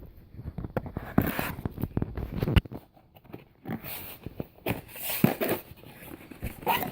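Packaging being torn open and handled: irregular rustling and tearing with sharp clicks and knocks, the loudest a few sharp hits about one, two and a half, and five seconds in.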